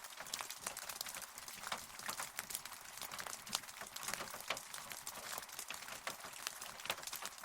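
Rain falling, a steady hiss dotted with many sharp, separate drop ticks.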